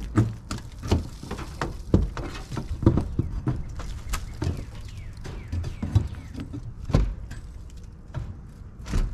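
Irregular knocks, clunks and rattles of hands and tools working at the wooden frame of a chick brooder, loosening it where it is screwed and nailed down, with a few louder knocks along the way.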